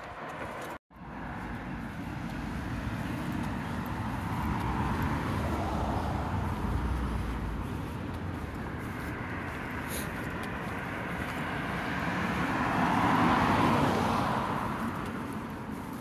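Cars passing on the road alongside: tyre and engine noise swells and fades twice, the second pass loudest about three-quarters of the way through. A brief dropout to silence comes just under a second in.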